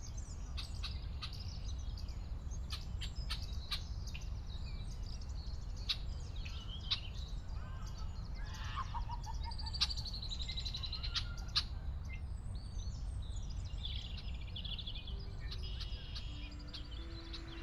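Many songbirds chirping and trilling over a steady low background rumble of outdoor ambience. Near the end a few low held notes of music come in.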